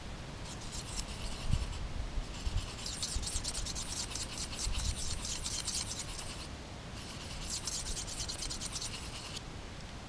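A Mora 746 knife edge is stroked quickly back and forth across a handheld diamond sharpening stone, making a rapid rasping scrape. The strokes come in three runs with brief pauses about two and seven seconds in. He is working to fix a bent, dulled edge.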